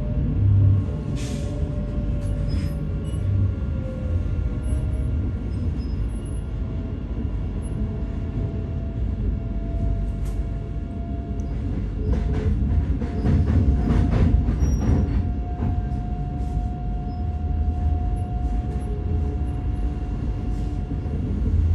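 Queensland Rail train running on the track: a steady low rumble with a tone that slowly rises in pitch, and a run of clicks from the wheels over the rails about two-thirds of the way through.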